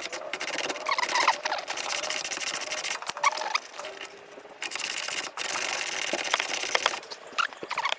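Ratchet wrench clicking rapidly as suspension bolts are run in, in two long runs with a pause of about a second near the middle.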